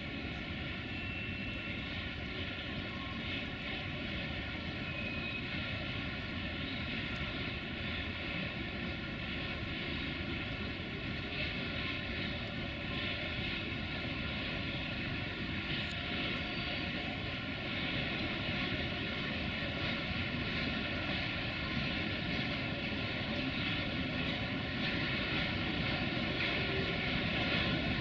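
A pair of 060-DA (LDE2100) diesel-electric locomotives with Sulzer engines heading a freight train, their steady engine drone growing slowly louder as they approach.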